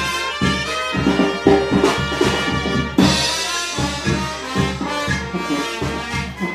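Brass band playing dance music, trumpets and trombones over drums, with a steady bass pulse about twice a second and a cymbal crash about three seconds in.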